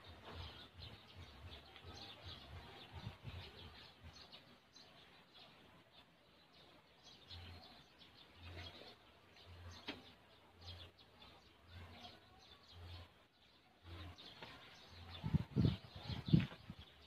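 Faint bird chirps in the background, with a few low thumps near the end.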